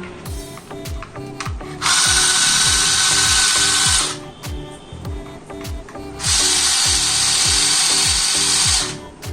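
Background music with a steady thumping beat. Twice, for about two seconds each time, a loud hissing whir from a small power tool cuts in over it: once about two seconds in and again past the middle.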